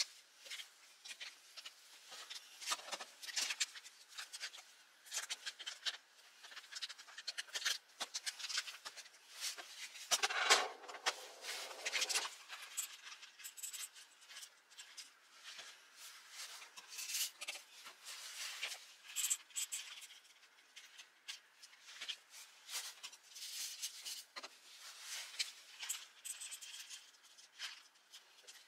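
Whole coffee beans poured from a crinkling coffee bag, rattling into a measuring scoop and a stainless steel cup as a quick run of small clicks, with a longer, louder pour about ten seconds in.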